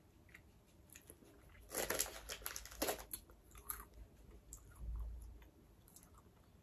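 A person chewing crunchy coated wheat-puff snacks with the mouth close to the microphone, in short crackly crunches, with a dull low bump about five seconds in.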